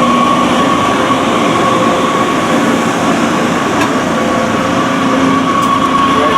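Loud, steady mechanical drone with a constant high whine running throughout.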